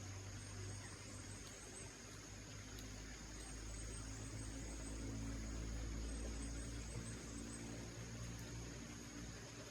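A low engine hum that swells toward the middle and eases off near the end, like a motor vehicle running nearby, over a steady high-pitched insect buzz with short repeated chirps.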